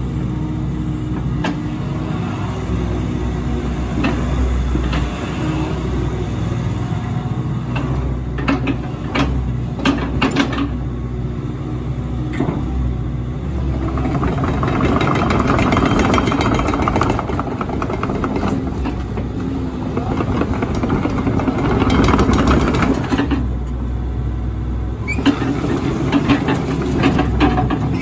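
Kobelco SK75SR-3E 7.5-tonne excavator's diesel engine running while the arm and bucket are worked, its sound swelling and easing as the hydraulics take load. Several sharp clanks come about a third of the way in.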